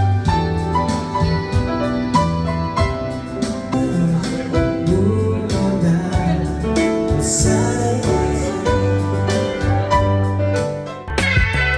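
Background music: an instrumental stretch of a Korean pop love song, with sustained bass and chords over a steady beat.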